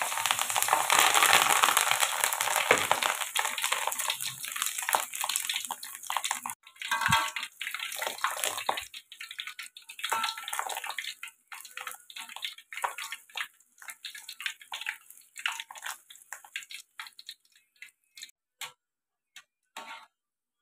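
Batter-coated young banana leaf deep-frying in hot oil in a wok. A dense sizzle at first thins over the following seconds into scattered crackles and pops as the leaf crisps into a chip.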